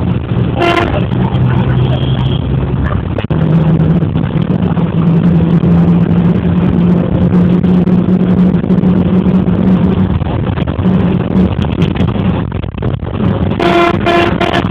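Engine and road noise of a moving vehicle, heard from inside as it drives along, with a steady low engine hum. A short, steady pitched tone sounds about a second in and again, for longer, near the end.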